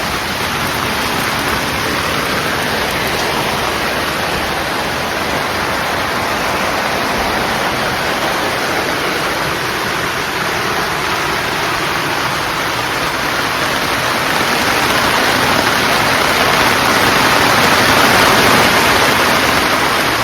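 Steady rain falling, a continuous even hiss that grows a little louder in the last few seconds.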